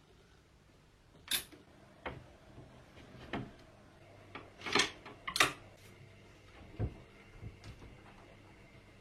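Objects being handled: a series of sharp clicks and knocks, the loudest about a second in and two close together around five seconds in.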